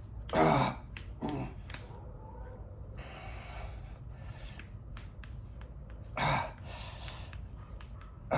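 Gripzilla Tornado grip trainer giving sharp, irregular clicks as its handles are twisted under resistance. A man's short grunts of effort come twice near the start and once about six seconds in, with a breathy exhale around three seconds.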